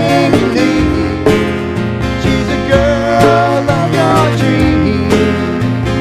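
Live acoustic band music: strummed acoustic guitar, bowed cello and djembe hand drum, with a man singing.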